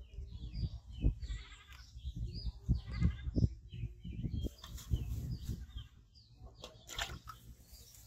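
An animal bleating several times with short, quavering calls, over low thumps and rustling close to the microphone; a short rush of noise near the end.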